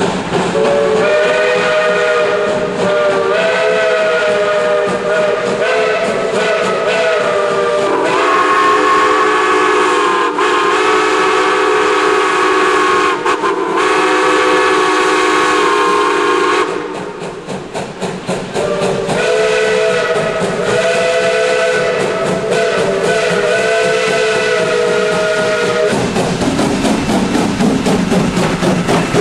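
Steam locomotive chime whistles blowing long blasts one after another, shifting to a lower, fuller chord about eight seconds in and back again after a short break. Near the end the whistling stops and the passing locomotive and train give a steady rhythmic beat.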